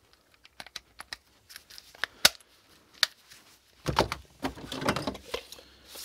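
Hard plastic power plugs clicking and knocking as they are handled and set down: scattered sharp clicks, a louder knock a little past two seconds in, then a burst of clattering as plugs and cables are shifted around four seconds in.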